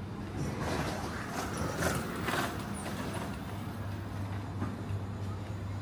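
Street ambience: a steady low mechanical hum, with a louder rush of noise swelling and passing between about half a second and two and a half seconds in.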